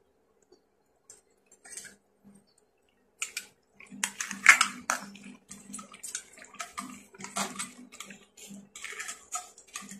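Soup splashing and sloshing in a metal pan as pieces of crab are moved about in it, in irregular bursts starting about three seconds in.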